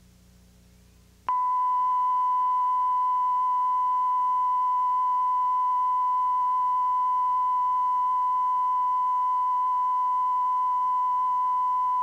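Television test tone: a single steady reference tone that starts abruptly about a second in and holds unchanged, sent with the colour-bar test pattern after the station has signed off the air. Before it comes a moment of faint hum.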